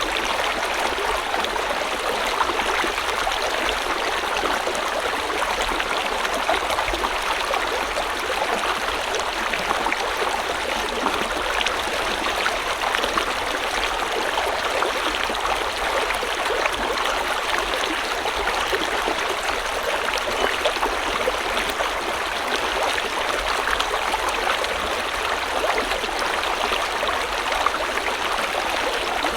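A river or stream flowing steadily, water babbling and trickling over stones in an unchanging rush.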